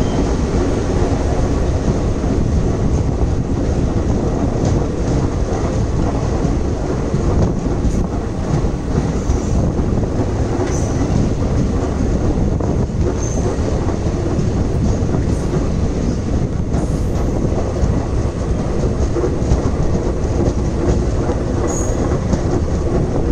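Running noise of an Indian Railways passenger coach heard from its open doorway: a steady heavy rumble of steel wheels on rail with clatter over the track. A few brief, faint high wheel squeals come and go.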